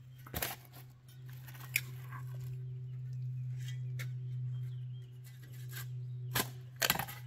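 Shovel blade digging into gravelly road base: a few sharp crunching scrapes and knocks, with a cluster near the end. A steady low hum runs underneath.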